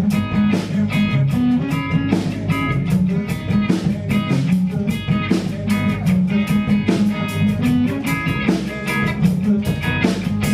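Live rock band playing with guitars over a drum kit keeping a steady beat.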